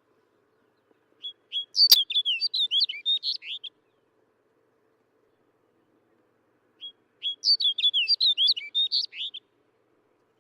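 Snow bunting singing: two short warbling phrases of quick, varied notes, each about two and a half seconds long, with a pause of about three seconds between them. A sharp click comes near the start of the first phrase.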